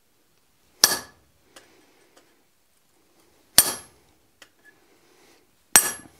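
Hand hammer striking a slot punch into a red-hot steel bar on an anvil: three slow ringing blows about two and a half seconds apart, starting a hot-punched slot.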